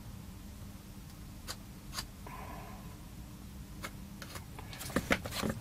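Bench work with a soldering iron on a small amplifier circuit board: scattered small clicks and taps, a brief soft hiss a little after two seconds in, and a quick run of sharper clicks near the end, over a faint steady low hum.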